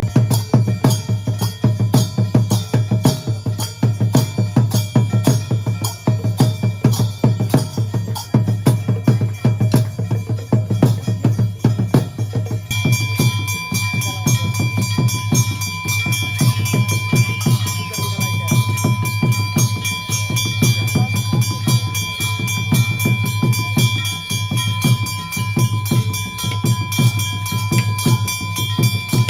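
Puja music: fast, steady drumming and percussion strikes. About halfway through, a steady ringing tone joins in and holds.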